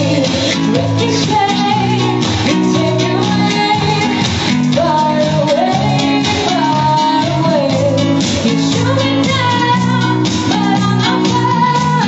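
Guitars playing a song, with chords held underneath and a gliding melody line on top that sounds like a singing voice.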